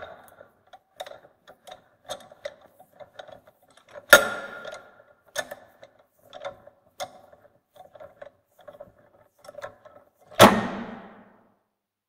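Bench vise being cranked slowly: its screw turns with a run of small irregular clicks and squeaks. There is a sharp metallic knock about four seconds in and a heavier metal clunk with a short ring about ten and a half seconds in.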